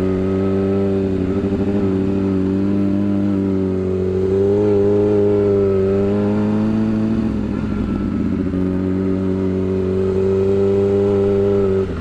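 Yamaha R6 sportbike's inline-four engine through a shorty aftermarket exhaust, running under way at fairly steady revs. The pitch rises a little in the middle, drops back briefly, then holds steady again.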